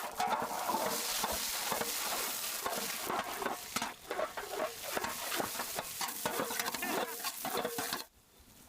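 A utensil stirring and scraping in a frying pan with a steady sizzle of frying, in quick irregular strokes; it stops abruptly near the end.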